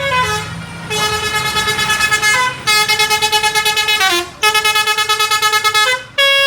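Telolet bus horn: a multi-tone musical horn playing a melody of stepped notes in rapid pulsing phrases, about four phrases separated by short breaks.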